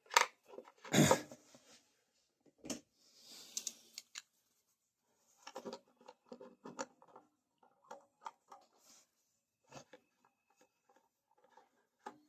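Small metal parts and a hand tool being handled while a carburetor plate is bolted on: scattered light clicks and knocks, with two louder knocks in the first second.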